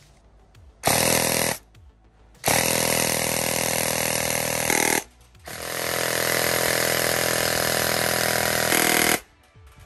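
Airsoft electric rifle with a dual sector gear firing full-auto, a fast mechanical buzz at a very high rate of fire. There are three bursts: a short one about a second in, then two long ones of a few seconds each.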